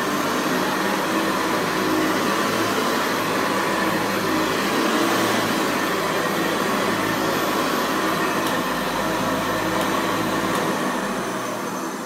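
A 1976 Hoover Senior Ranger U4014 upright vacuum cleaner running on carpet with a steady motor whine. Near the end its motor starts to wind down.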